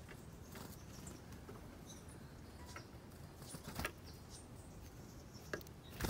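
Faint backyard quiet with scattered soft ticks and rustles and a few short, high chirps; a louder tick comes a little before the end.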